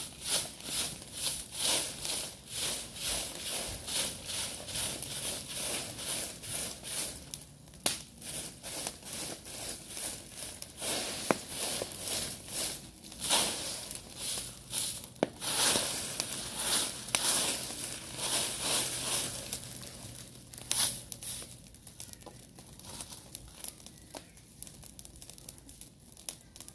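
A bundle broom of thin stems scratching over dry leaves and gritty ground in quick repeated strokes, about two a second, thinning out after about twenty seconds.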